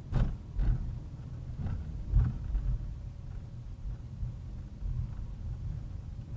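Car driving, with a steady low rumble of engine and road. Four or five dull thumps come in the first two and a half seconds.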